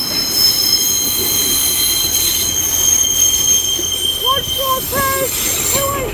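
Class 142 Pacer railbus pulling out, its wheels squealing on the curved track: several steady, high-pitched tones at once that fade away near the end. Short, high, pitched calls come in over it in the last couple of seconds.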